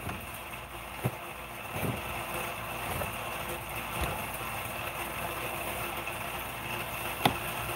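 A steady machine-like hum, with a short sharp click about a second in and another near the end.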